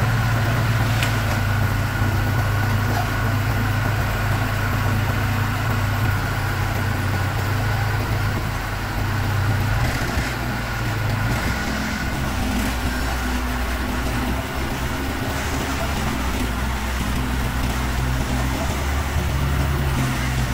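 Heavy diesel engines of a Niigata asphalt paver and a dump truck feeding it asphalt, running steadily close by. The low engine hum changes to a deeper note about eleven seconds in.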